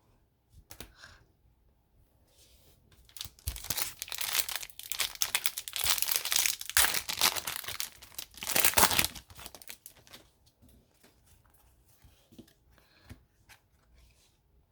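A hockey card pack wrapper being torn open and crinkled. The crackling runs for about six seconds starting a few seconds in and is loudest near the end of the tearing, followed by faint light clicks and rustles of the cards being handled.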